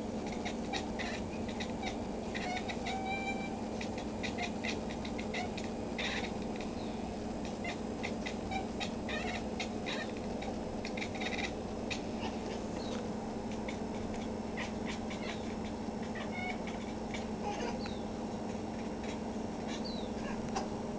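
Domestic cat chattering and chirping at a hummingbird it is watching: rapid clicking bursts mixed with short, high meows, the excited prey-watching call. Under it runs a steady low hum, and there is a small bump near the end as the cat bounds off.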